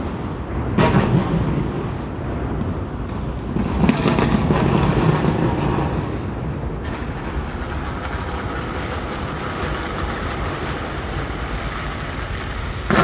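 Fireworks exploding in a continuous rumble of booms, with a sharp burst about a second in and a longer, louder stretch around four to five seconds, then settling into a steady rumble.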